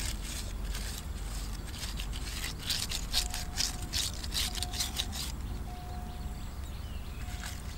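Quick swishing strokes of a bundle of green leaves brushed over the skin of a whole spit-roasting chicken to baste it with marinade. The strokes come in a dense run from a few seconds in to past the middle.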